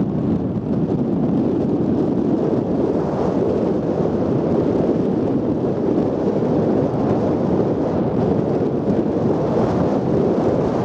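Wind buffeting the camera microphone: a steady, rough low rushing noise with no engine note standing out.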